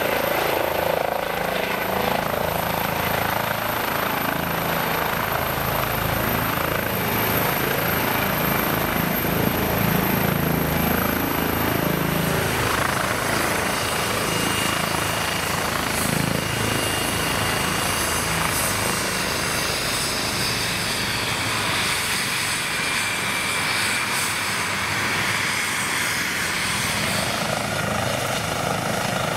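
Eurocopter EC135 helicopter with twin turbines and turning rotors, coming in to land and then running on the ground. Steady, loud rotor and turbine noise, with a high whine that steps down in pitch about twelve seconds in.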